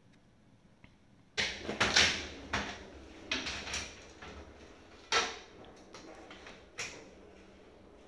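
Plastic knocks and clatter of a ceiling cassette air conditioner's return-air grille being unlatched and swung down by hand, starting about a second and a half in as a run of sharp knocks, the loudest about two and five seconds in.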